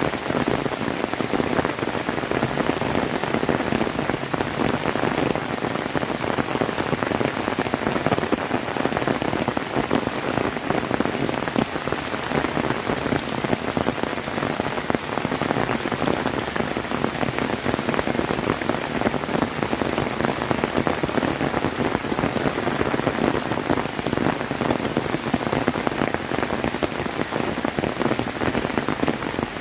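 Heavy rain falling steadily: a dense, even wash of many individual drops striking.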